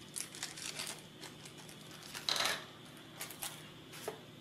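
Small M3x8 bolts clinking onto a hard table as they are shaken out of a small plastic parts bag, with the bag crinkling. The sound comes as a scatter of light metallic clicks, with the loudest, a short rattle, about halfway through.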